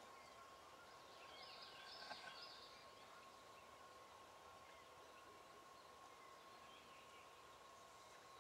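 Near silence with a faint steady tone, and a brief faint bird call about a second and a half in.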